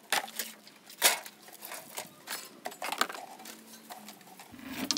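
Sharp metallic clinks and rattles of scrap metal being shifted and picked through by hand, several separate knocks with the loudest about a second in.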